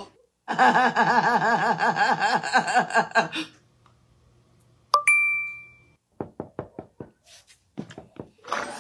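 A wavering, pitched warble lasting about three seconds, then a single bright ding that rings out for about a second, then a run of about eight sharp knocks on a door in uneven groups.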